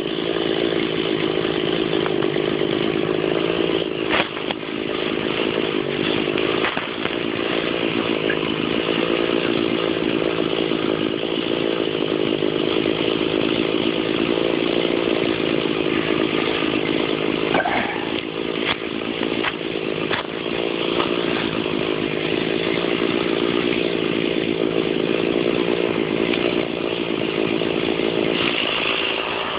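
Stihl chainsaw running steadily at high speed, cutting into an oak trunk, with a few brief dips in pitch. It eases off slightly near the end.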